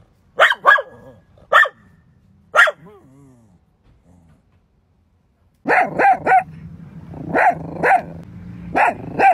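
Jack Russell Terrier barking in short, sharp barks: four spaced barks, a pause of about two and a half seconds, then a quicker run of barks over a low steady hum.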